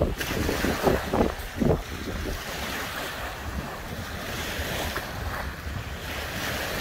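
Small waves breaking and washing onto a sandy lakeshore, with wind blowing on the microphone.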